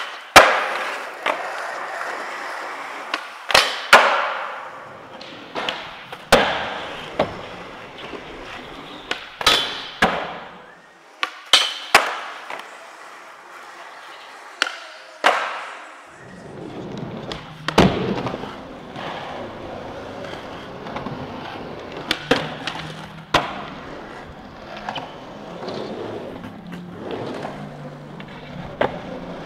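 Skateboard tricks on smooth concrete: a series of sharp clacks from the tail popping and the board landing, with the wheels rolling in between. From about 16 seconds in, the rolling hum is steadier, with fewer, lighter knocks.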